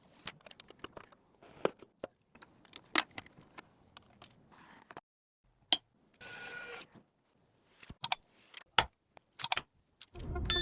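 Irregular small clicks, taps and light knocks of computer parts being handled and fitted together, with a short scrape or rustle a little past the middle.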